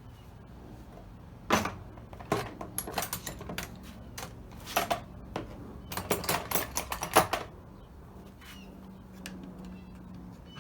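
Sharp clicks and clattering of hand tools being picked up and handled, in quick irregular clusters through the first two-thirds, then quieter.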